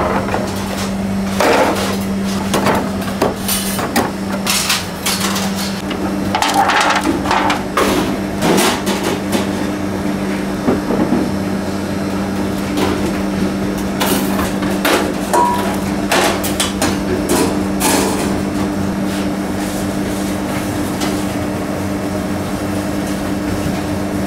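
Soft braided brioche torn apart by hand, with scattered short crackles and knocks, over a steady machine hum.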